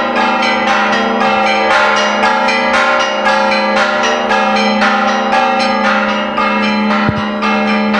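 Church bells pealing fast, struck over and over several times a second so the strokes ring together.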